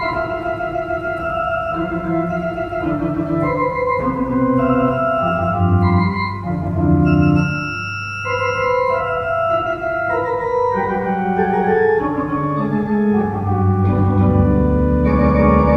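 Organ playing a free contemporary improvisation: held notes and chords that shift every second or so, with a deep sustained bass coming in near the end.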